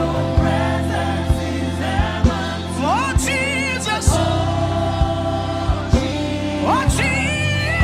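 Slow gospel worship music: sustained keyboard chords over a steady bass and beat, with a voice sliding up into long held, wavering notes about three seconds in and again near the end.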